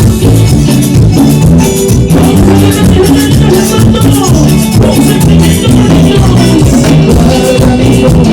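Live band playing Latin dance music through a loud PA system: a steady beat with shaker-type percussion over a moving bass line, in an instrumental passage.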